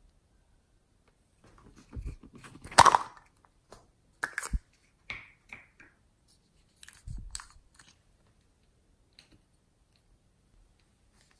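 Sticky crackling and clicking as hands work glossy slime and foam beads and handle small plastic cosmetic containers. The sounds come in short scattered bursts with quiet gaps, loudest about three seconds in, and die away in the last few seconds.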